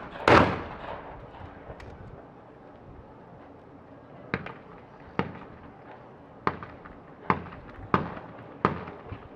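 A 12-gauge shotgun fires close by a moment after the start, the second shot of a skeet double, its report dying away over about half a second. Then six fainter, sharp shotgun reports follow, roughly a second apart.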